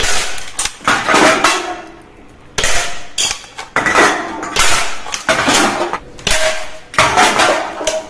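Hard toy guns and their parts being handled and knocked together: a quick series of clattering knocks and clinks with short gaps, some ringing briefly.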